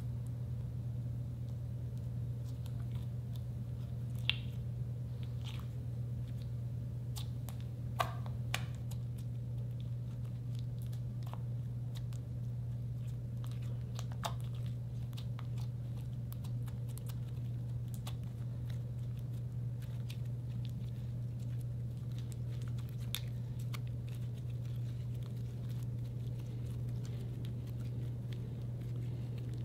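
White slime being pressed and kneaded by hand to work lipstick colour into it, giving scattered small sticky clicks and crackles over a steady low hum.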